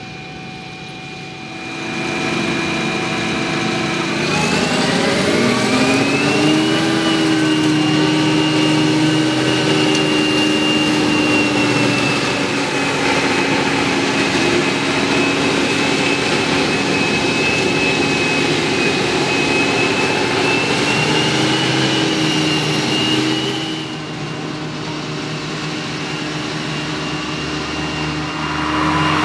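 Krone Big X 700 forage harvester's V8 engine running hard while chopping maize, a steady engine note under a high whine. A few seconds in, the engine and whine climb in pitch together to a higher steady speed; the sound drops in level a few seconds before the end and then builds again.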